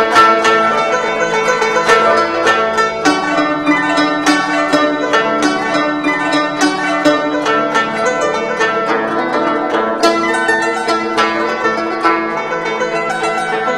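Guzheng (Chinese plucked zither) playing a lively passage: a quick string of sharply plucked notes that ring on over one another.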